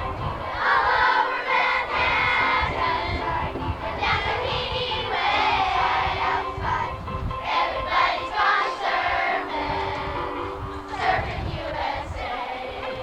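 A group of children singing a song together with musical accompaniment.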